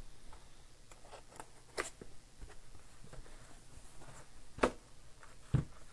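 A cardboard trading-card hobby box being handled and opened by hand: light taps and rustles of cardboard, with a sharper knock about two seconds in, another past four and a half seconds, and a dull thump near the end.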